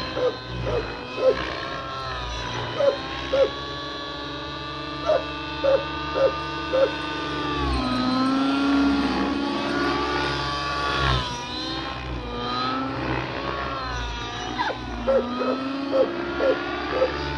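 Nitro-engine RC helicopter (a 7HV converted to nitro) in flight: the glow engine and rotor whine rise and fall in pitch as the load changes, dipping and climbing again about halfway through. Clusters of short loud blips come near the start, in the middle and near the end.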